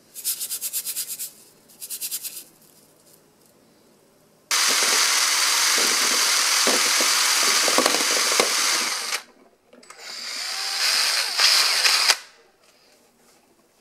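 A drill driving a stirring attachment, whisking liquid to a froth in a plastic bowl. Two short stuttering bursts in the first couple of seconds, then a steady run of about five seconds, a brief stop, and a second run of about two seconds that ends abruptly.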